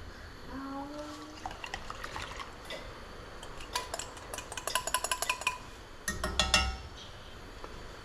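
Kitchen utensils clicking and clinking against dishes and a pan: a run of quick light clicks in the middle, then a louder cluster of ringing clinks near the end.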